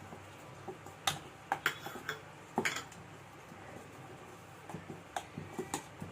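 Kitchen utensils clinking and knocking against a cooking vessel: a run of sharp taps about a second in, then a few more near the end.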